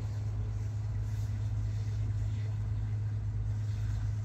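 Cummins diesel engine of a school bus running steadily with an even low hum, parked during a forced DPF regeneration.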